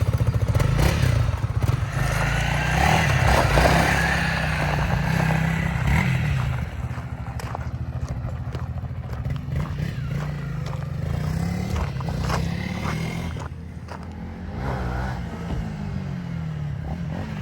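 Honda CRF300L dirt bike's single-cylinder engine running and revving up and down, its pitch rising and falling repeatedly, with a rough hiss over the first six seconds or so.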